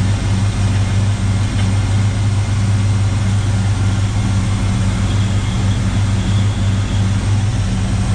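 1968 Pontiac GTO's 400 cubic-inch V8 running at a steady idle, freshly started after about six months sitting.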